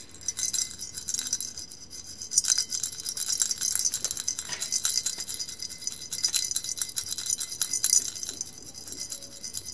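A shaken rattle with a bright, chime-like jingle and many small clicks, starting suddenly and running on steadily.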